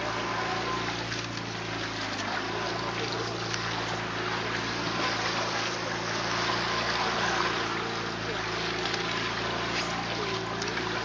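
Whale-watching catamaran under way: a steady engine hum with water rushing and splashing along the bow.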